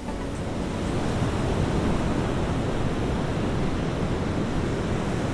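Steady rushing noise of wind and sea waves, with no distinct events.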